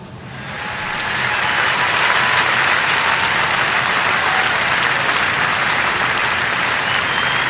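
Audience applause from a live music recording, swelling up over the first second and then holding steady.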